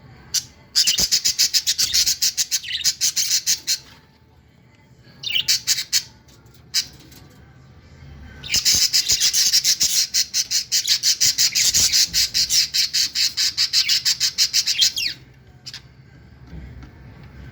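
Budgerigars (Australian parakeets) giving rapid, repeated squawking chirps in three bouts, the last and longest lasting about six seconds.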